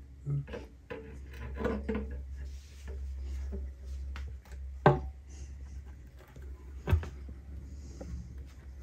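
Steel oil pan being set onto an aluminium engine block and shifted into place by hand: scattered light knocks, taps and rubbing, with two sharper knocks about five and seven seconds in.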